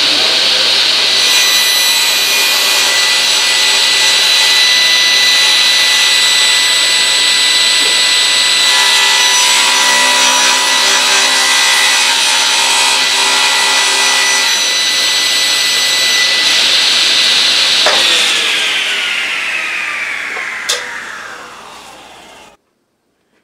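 SawStop cabinet table saw running at full speed, its blade cutting through a strip of wood carried on a miter sled partway through. About 18 seconds in it is switched off, and the motor and blade wind down with a falling whine.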